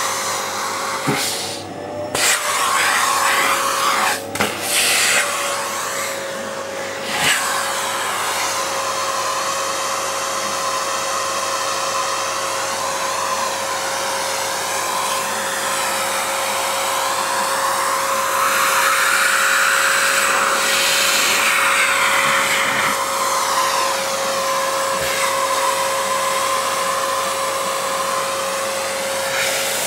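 Vacuum cleaner running steadily with a constant whine, its hose nozzle drawn over a cat's fur. The rush of air changes abruptly a few times in the first several seconds and shifts in pitch later on as the nozzle moves against the fur.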